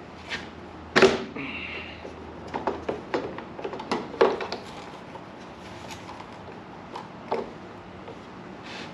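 Scattered clicks and knocks of hands and tools handling the small engine's plastic covers and air filter housing, with a sharp knock about a second in followed by a brief scraping rub, then a run of light clicks.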